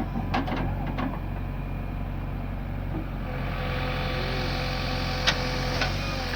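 Heavy diesel engine running steadily, with a few sharp knocks in the first second and the engine noise growing louder and brighter from about three seconds in.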